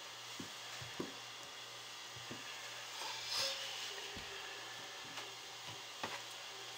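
Faint handling sounds of soap on a wooden soap cutter: a few light knocks and a brief scrape about three and a half seconds in, over a low steady hiss.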